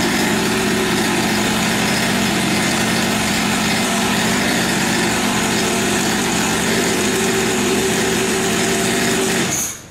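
Small 50cc two-stroke engine of a mini dirt bike, freshly pull-started, idling steadily, then cutting off suddenly near the end.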